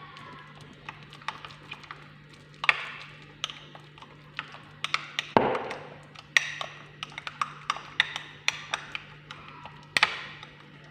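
A spoon stirring a thick turmeric and honey paste in a bowl, clicking and tapping irregularly against the sides, with a few sharper knocks.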